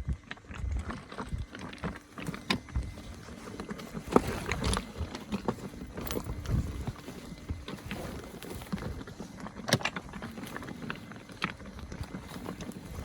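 Electric unicycle riding over a rough dirt trail: irregular knocks and clatter of the tyre and wheel over rocks and roots, over a low rumble.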